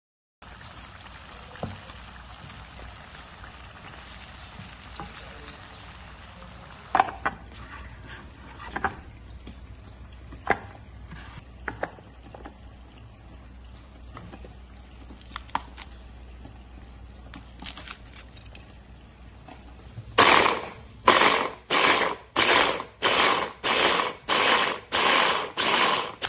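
Egg tofu slices frying in hot oil, sizzling steadily, followed by scattered knocks as ingredients go into a small electric chopper. Near the end the chopper is run in short pulses, about a dozen, roughly two a second, grinding shallots, garlic and chilies into a paste; these pulses are the loudest sound.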